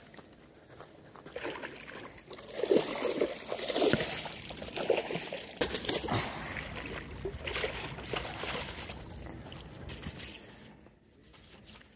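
Water splashing in irregular bursts from a hooked bowfin thrashing at the surface as it is fought in; the splashing dies down near the end.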